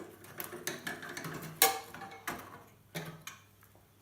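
Irregular clicks and knocks of plastic and metal computer parts being handled and pried apart, with one sharper knock about a third of the way in, as the CPU area of an old Pentium 3 tower is worked loose.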